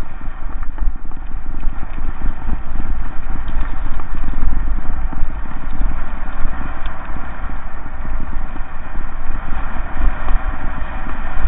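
Mountain bike rolling fast down a loose gravel track: a continuous crunch and rattle of tyres over stones and the bike jolting, with wind rumbling on the microphone.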